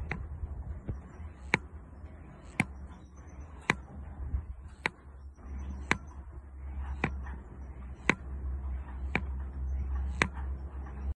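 Sharp, evenly spaced ticks about once a second over a steady low rumble. A few faint high chirps of canaries come through between the ticks.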